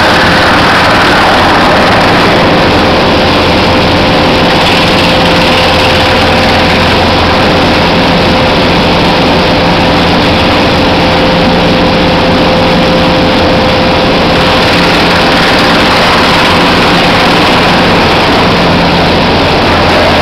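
Sawdust-handling machinery running steadily and loudly: a belt conveyor on its idler rollers and an electric-motor-driven machine, with a constant hum.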